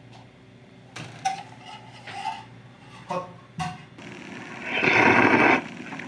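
A few light knocks and clinks of utensils against the bowl, then, near the end, a loud slurp of ramen noodles lasting about a second.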